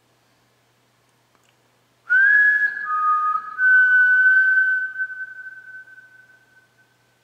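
A person whistling one long high note: it begins with a breathy onset and a quick upward slide about two seconds in, breaks off briefly, then holds with a second lower note alongside for a couple of seconds before trailing away.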